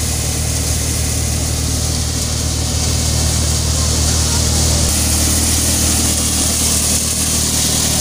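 Tractor-driven paddy thresher running steadily while threshing rice: a low engine hum under a loud rushing hiss of air and straw from the machine. The sound shifts slightly about five seconds in.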